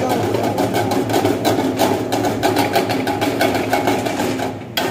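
Steel ladle scraping and knocking rapidly against a wok as diced vegetables are stir-fried, a fast continuous clatter.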